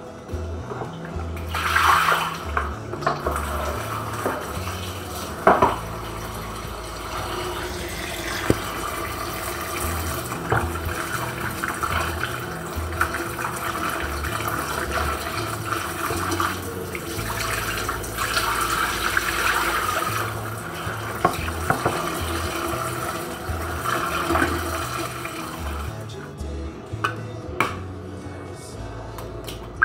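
Kitchen tap running steadily into a plastic basin while food is rinsed under it by hand, starting a second or two in. The water stops near the end, followed by a few light clicks and taps as an egg is cracked against a glass bowl.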